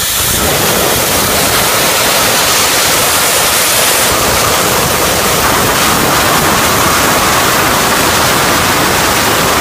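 CNC plasma torch cutting steel plate: a loud, steady hissing rush of the arc and compressed air, which turns fuller and deeper right at the start and then holds unchanged.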